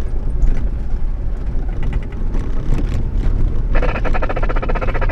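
Land Rover driving slowly along a gravel track, heard from inside the cabin: a steady low engine and tyre rumble with scattered small clicks. Near the end a dense buzzing rattle starts and keeps going.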